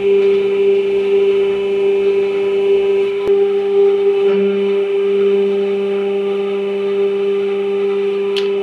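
Hydraulic press pump running with a steady, even hum.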